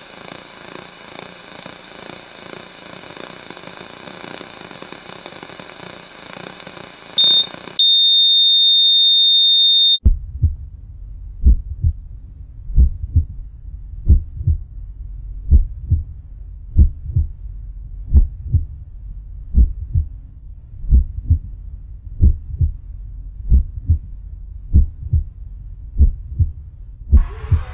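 Edited sound effects: TV static hiss for about eight seconds, then a short beep and a loud, steady high-pitched test tone that cuts off abruptly. After that comes a heartbeat effect, pairs of low thumps repeating about every second and a half.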